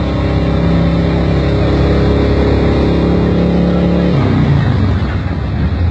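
A motor running steadily: an even hum over a low rumble. The humming tone cuts out about four seconds in, leaving the rumble.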